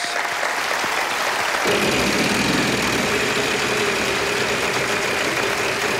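The big game-show prize wheel spinning, its flipper clattering rapidly over the pegs, under studio audience applause and cheering.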